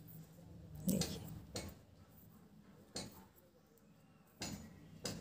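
Knitting needles clicking and tapping against each other as wool is purled from one needle to the other: a handful of faint, irregularly spaced clicks.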